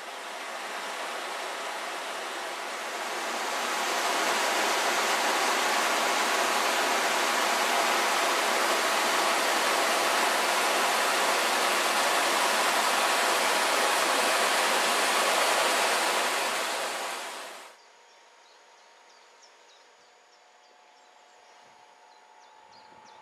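Stream water rushing over and between rocks in a loud, steady rush that swells a few seconds in. About 18 seconds in it cuts off suddenly, leaving a much quieter background with faint high chirps.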